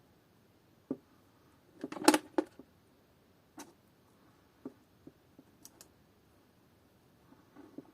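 Irregular clicks and light taps of small tools and parts being handled on a workbench, with a quick cluster of sharper clicks about two seconds in and scattered single taps after.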